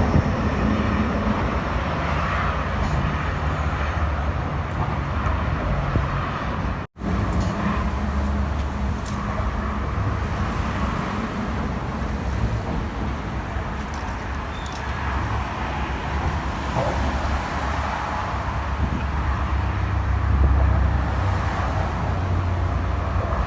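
Steady road-traffic noise from passing vehicles, with a low rumble that swells and fades. A sudden split-second dropout comes about seven seconds in.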